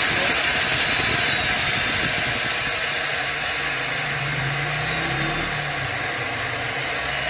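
Handheld electric liquid mixer's motor running steadily with a whirring hiss, its long shaft and loop paddle spinning unloaded in open air. It gets a little quieter about two to three seconds in.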